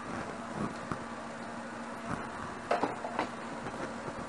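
Light knocks and clatter of kitchen items being handled at a wire rack and counter, a handful of short scattered knocks over a steady low hum.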